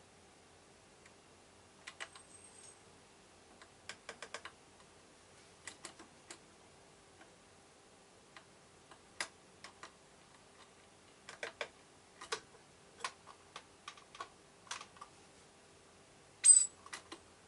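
Irregular sharp clicks and taps, single and in quick runs of three to five, from a varied tit pecking and hopping on the wooden perch and plastic seed tray of a feeder, over a faint steady hum. About a second before the end comes a louder, brief scuffle with a short high squeak.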